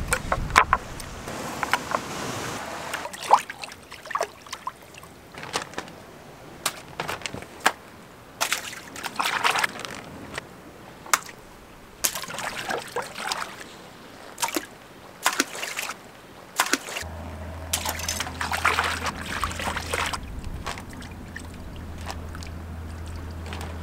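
Atlantic mackerel being filleted with a knife on a wooden cutting board: scattered sharp taps and knocks of the blade and fish on the board, with wet handling and water sloshing and trickling.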